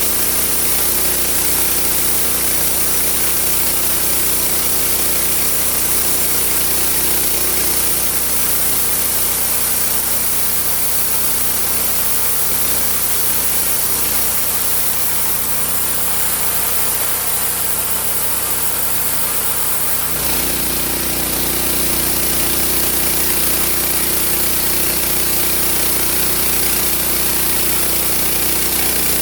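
Home-built sawmill's engine running steadily with the saw going, its low tone changing abruptly about twenty seconds in, as the load or speed shifts.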